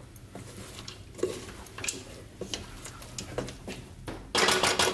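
Wooden spoon stirring thick trahana and onions in a metal saucepan: soft scraping with small irregular taps against the pot. Near the end comes a louder clatter lasting about half a second.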